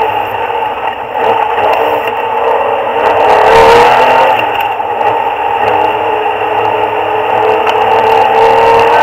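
Porsche 993 RS's air-cooled flat-six engine running hard on track, heard inside the cabin, muffled, its pitch rising and falling with the revs.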